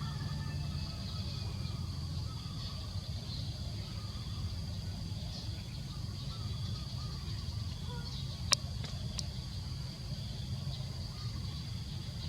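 Outdoor ambience: a steady low rumble with a thin high-pitched drone above it, and two sharp clicks about a second apart near the end.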